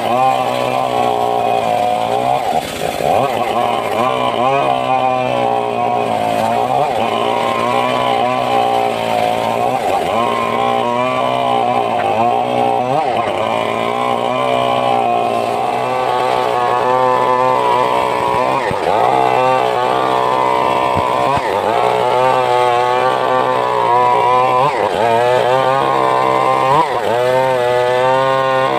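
Homemade table circular saw ripping teak and mahogany boards. Its steady running whine dips in pitch again and again as the blade bites into the wood, then picks back up.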